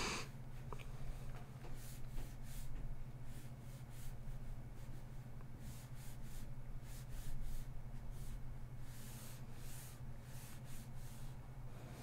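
Faint, irregular scratching strokes of a stylus on a drawing tablet over a steady low electrical hum.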